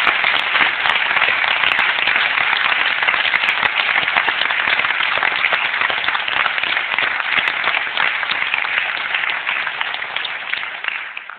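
Audience applauding: dense, steady clapping from a hall full of people that dies away near the end.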